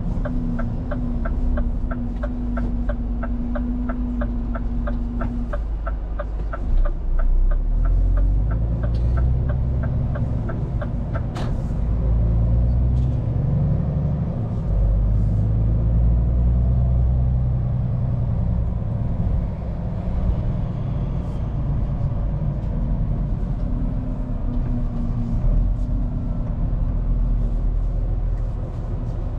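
Scania P410 truck heard from the cab: the indicator ticks evenly, about three a second, over the diesel engine for the first ten seconds or so. After a sharp click the engine pulls away, its pitch rising and falling through gear changes.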